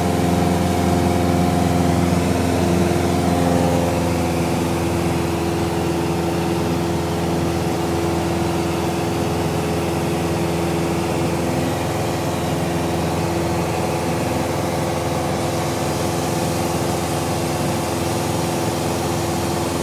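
Piper Warrior's four-cylinder Lycoming O-320 engine and propeller droning steadily in flight, heard inside the cabin. The engine note eases slightly about three to four seconds in, then holds steady.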